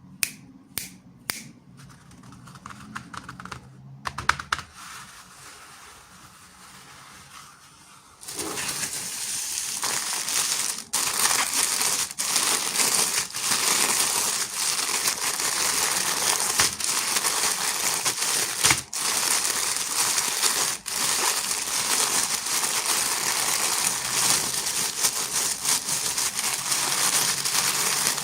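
A few sharp clicks and light tapping of toy packaging being handled, then, from about eight seconds in, continuous crinkling and rustling of a packaging wrapper being torn open and unwrapped, dotted with sharp snaps.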